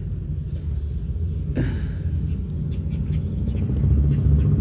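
Low engine rumble of a chopper motorcycle, growing steadily louder as it approaches.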